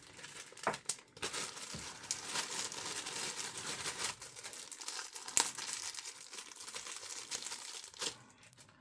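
Packaging crinkling and rustling as a kit part is unwrapped by hand, with a few sharp clicks along the way.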